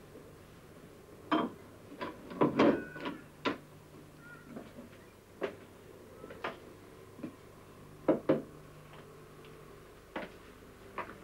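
Glass bottles and a drinking glass being handled on a counter and shelves: about a dozen scattered knocks and clinks, the loudest group about two and a half seconds in, a few ringing briefly.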